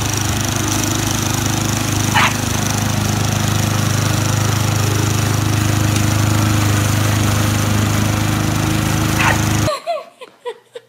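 Walk-behind gasoline lawn mower's small engine running steadily, with a dog barking twice over it. The engine sound cuts off suddenly near the end, leaving only faint small sounds.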